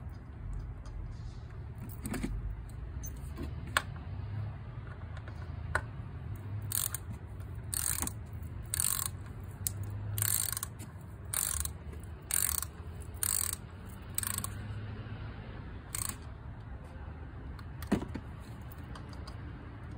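Socket ratchet on an extension clicking through a run of short strokes, about one a second, as it turns an ignition coil's hold-down bolt on a 2009 Toyota Corolla engine. A few single sharp clicks of tool on metal come before and after the run.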